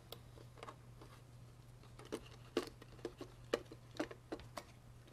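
Light plastic clicks and taps as a battery pack is pushed into the battery bay of a FrSky Taranis radio transmitter: a dozen or so irregular clicks, most of them in the second half.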